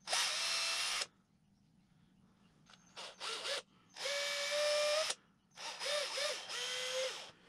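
Small Ozito cordless drill running in short trigger bursts, its motor whine rising as each burst spins up, as a thin bit is drilled into a small wooden lure blank. There is a burst of about a second at the start, two quick blips, another second-long burst, then three short bursts near the end.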